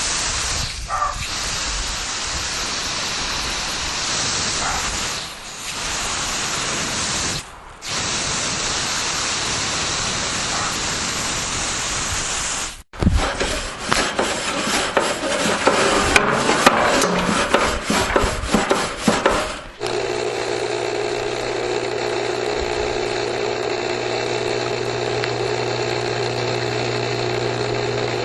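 Three separate backyard recordings in a row. First a steady hissing noise with brief dips, then an abrupt change to about seven seconds of irregular clattering and scraping. From about twenty seconds in comes a steady mechanical hum, which sounds like a refrigerator.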